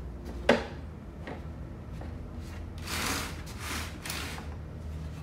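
Handling inside a hard plastic Ryobi tool box: a sharp plastic knock about half a second in, then scraping and rustling as the contents are shifted about.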